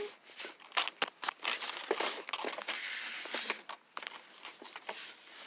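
Rustling, crinkling and scraping as the phone is handled and rubbed against fabric, with many quick clicks and scratches, busiest from about one to three and a half seconds in.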